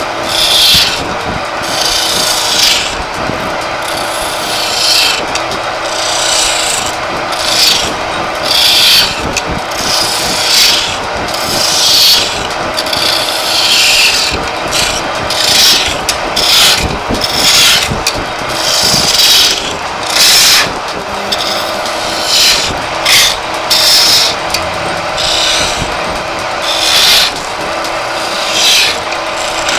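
Lathe chisel scraping and cutting into a spinning wooden charpai leg in short repeated bursts, about one a second, over the steady hum of the lathe running.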